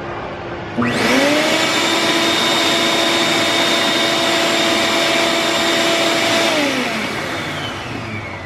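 Motor head of a 12-gallon Ridgid shop vac starts the moment it is plugged in, spins up with a rising whine and runs steadily for about five seconds, then cuts out and whines down in pitch as it coasts to a stop. It starts without the switch being used because its on/off switch is stuck in the on position.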